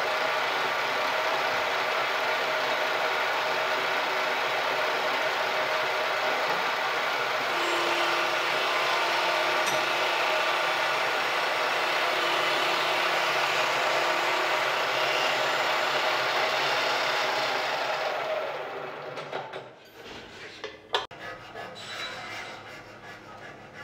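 Manual milling machine running, its cutter milling the receiver guide-block slots into a walnut shotgun stock: a steady, dense whir with a constant hum. It stops about 19 s in, followed by a sharp click and then short scraping strokes of a hand file on the wood near the end.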